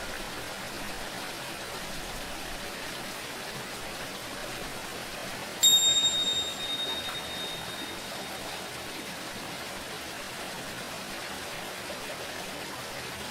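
Steady running water with a single high, bright strike of tingsha cymbals about five and a half seconds in, ringing out and dying away over a few seconds.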